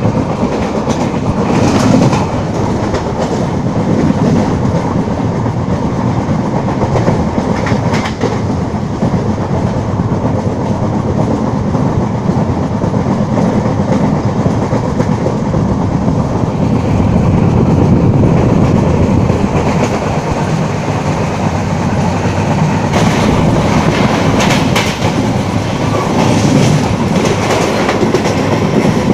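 LHB passenger coach running at speed, heard from an open coach doorway. A steady rumble and rush of wheels on rail, with occasional clacks over rail joints.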